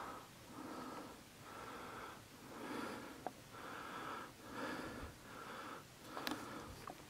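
A man's heavy, rhythmic breathing close to the microphone, a breath in or out a little under once a second, as from exertion. A few sharp clicks come through about halfway and again near the end.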